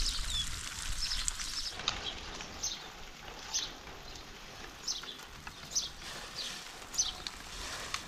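Bird chirping: short, high chirps that sweep downward, about one a second. In the first two seconds they sit over the hiss of water spraying from a leak in a black plastic hose.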